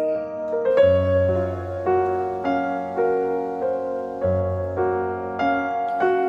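Soft background piano music: a slow, even run of single notes over long held bass notes.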